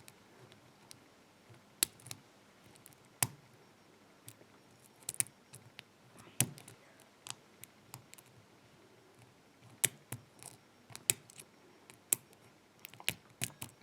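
Lock pick and tension tool working the pins of an old Lockwood padlock: faint, sharp metallic clicks at irregular intervals, about a dozen, as binding pins are lifted a little at a time under heavy tension.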